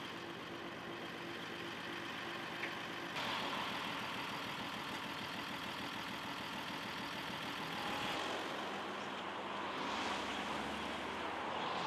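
A truck engine idling with road traffic around it, the sound changing abruptly twice. Near the end a vehicle goes by.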